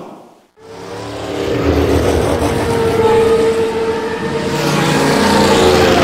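Logo intro sound effect: after a brief gap about half a second in, an engine-like drone with a low rumble and a few steady tones swells up and holds.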